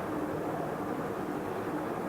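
Cargo ship's engine running with a steady drone and a faint hum, as the ship makes its way slowly against the tide.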